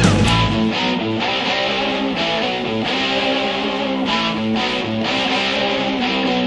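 Background rock music led by guitar. The low end drops away about half a second in, leaving a lighter strummed and plucked guitar passage.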